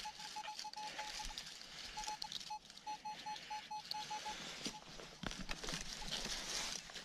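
Metal detector beeping on a target: short beeps of one steady pitch, about six a second, in two runs with a short break after the first second or so, ending about five seconds in. Rustling and scraping noise runs underneath.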